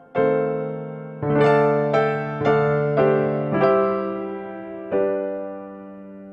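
Background music: an electric piano playing a slow melody of struck notes that ring and fade over held lower notes.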